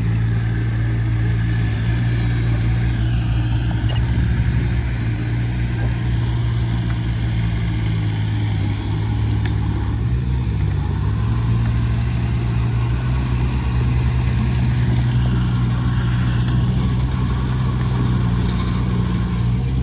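Heavy construction-machine diesel engine running steadily, its pitch wavering briefly about halfway through.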